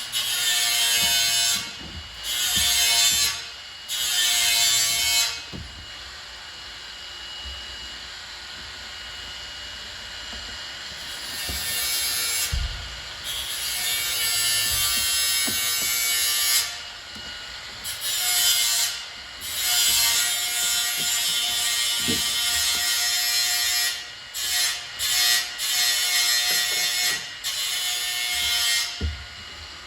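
A hand glazing tool scraping and rasping along the rubber seal of a locomotive number board, in repeated strokes of one to several seconds: three short strokes, a long run in the middle, then a quick series of short ones near the end.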